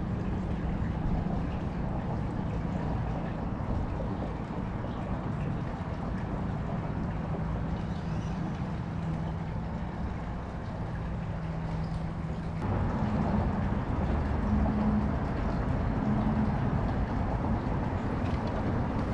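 A steady low motor hum over a rushing background noise. About twelve seconds in the hum changes abruptly to a slightly higher, uneven drone.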